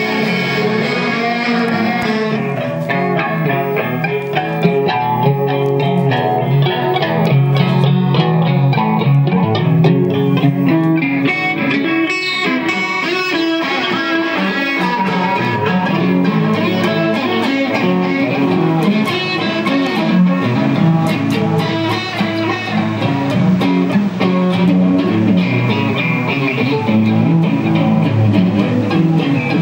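Instrumental guitar music: a continuous run of plucked guitar notes.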